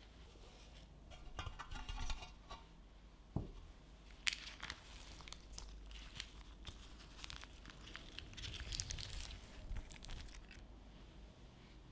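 Baking paper being peeled off a frozen semifreddo loaf, crinkling and tearing in short irregular bursts, with a few sharp clicks and one low knock.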